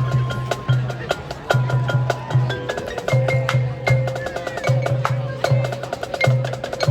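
High school marching band playing a rhythmic percussion-led passage: low drum pulses in a steady pattern under sharp, wood-block-like clicks, with held pitched notes over the top.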